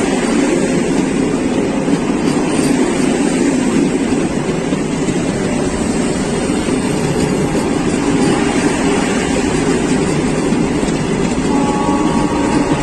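A train passing on the adjacent track: a loud, steady rushing rumble of the moving train.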